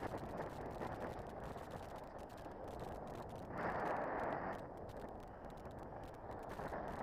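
Wind rushing over the microphone, a steady noise that swells in a gust about halfway through.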